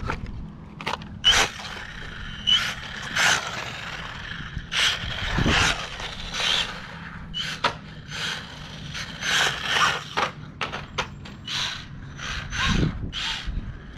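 Brushless RC stadium truck driven in a series of short, irregular throttle bursts, its electric motor whining and its tyres scrabbling on rough asphalt.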